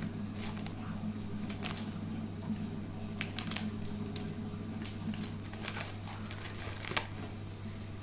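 Plastic wrapper of a packet of digestive biscuits crinkling in scattered sharp crackles as an African grey parrot pulls at it with its beak, over a steady low hum.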